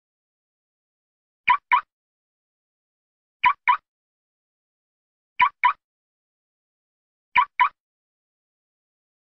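Car locking with the remote: a quick double chirp from the car's alarm, repeated about every two seconds, four times.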